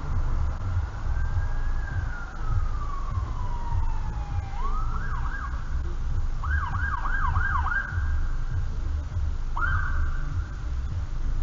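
Emergency vehicle siren: one slow wail that rises and then falls, then several quick rising yelps about five to eight seconds in, and one more rise near the end. Under it is the steady low rumble of the car.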